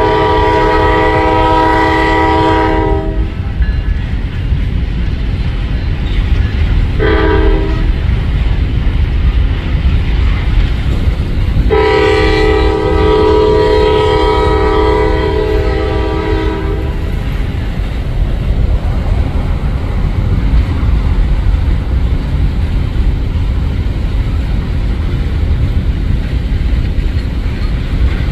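CSX freight locomotive's multi-chime air horn sounding for a grade crossing: a long blast at the start, a short one about seven seconds in, and a long one of about five seconds around twelve seconds in. Under it runs the steady rumble and clatter of empty hopper cars rolling past.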